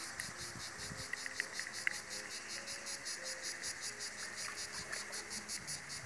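An insect chirping in a steady, fast rhythm of high-pitched pulses, about eight a second.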